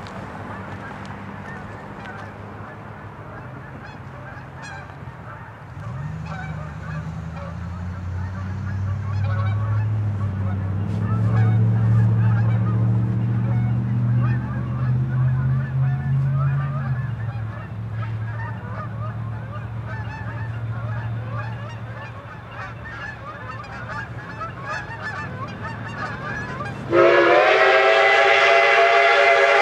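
Huckleberry Railroad steam locomotive No. 152 approaching with a low rumble that builds and then eases. About 27 seconds in, its steam whistle starts blowing loud and steady, a chord of several notes.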